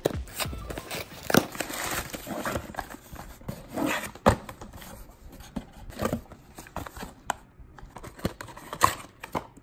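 A taped cardboard box being opened by hand: packing tape torn, cardboard flaps scraped and pulled back, and small paper-boxed aquarium test kits rustled and knocked together as they are lifted out, in a run of irregular scrapes, crinkles and taps.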